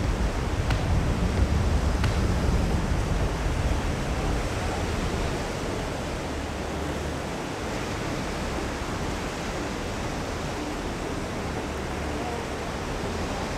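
Surf washing and breaking on the beach, a steady rush of noise, with wind rumbling on the microphone that is strongest in the first few seconds.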